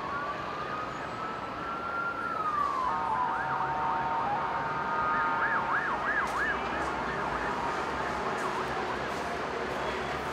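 Sirens of emergency vehicles responding to an emergency: one slow wail rising and then falling in the first few seconds, followed by several overlapping sirens, some in steady tones and some in fast up-and-down yelps, over steady background noise.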